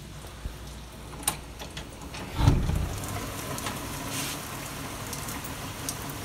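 Heavy rain pouring down with hail mixed in: a steady hiss of rainfall with scattered sharp ticks of hailstones striking. A dull thump about two and a half seconds in.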